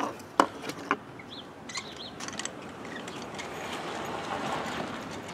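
Outdoor ambience: a few sharp knocks in the first second, some short bird chirps, then a passing vehicle's noise that swells and fades.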